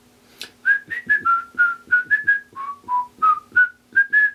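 A whistled tune, a quick run of short notes starting about half a second in, falling in pitch in the middle and climbing back near the end, over a faint steady low hum.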